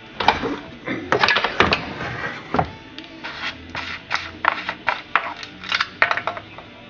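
Irregular clicks, knocks and clatter of the metal parts of a vintage McCulloch 5-49 chainsaw being handled, about a dozen sharp knocks over several seconds.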